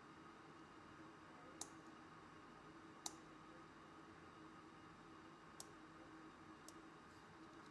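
Near silence over a faint steady hum, broken by a few faint, sharp clicks spaced a second or more apart: small metal tools tapping at a microsoldering bench.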